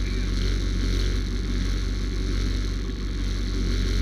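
Engine of a Mule side-by-side utility vehicle running at a steady speed: a low, even drone with no revving up or down.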